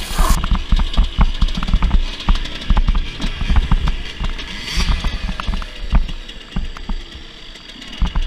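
Dirt bike riding over a rough gravel trail, heard from a helmet camera: heavy, irregular wind buffeting and bumps on the microphone over the engine. About five seconds in, the engine note falls away as the bike slows.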